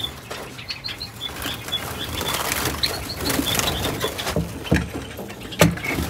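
Java sparrows chirping with many short high calls, over a few knocks from handling the clay nest pot and the wire cage; the loudest knock comes about five and a half seconds in.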